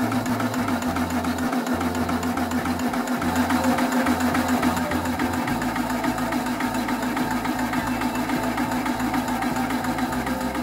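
Homemade high-pressure PCP air compressor running, its crank and connecting rod driving the twin pistons back and forth. It makes a steady mechanical hum with a fast, even pulse from the piston strokes.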